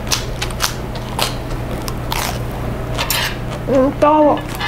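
Close-miked eating: scattered sharp clicks and crackles of chewing over a steady low hum. Near the end a woman exclaims "hot" (뜨거워) at a mouthful of hot food.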